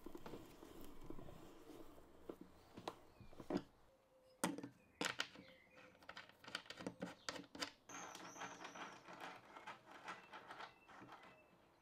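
Faint metal clicks and rattles of bolts, a hex key and a swivel caster being handled on an MDF board as the caster is bolted into threaded inserts. There is a quick run of sharp clicks around the middle.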